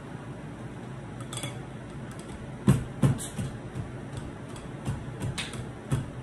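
Pestle pounding soda crackers into crumbs in a ceramic bowl: irregular knocks and thuds as it strikes the bowl, the loudest a little before three seconds in.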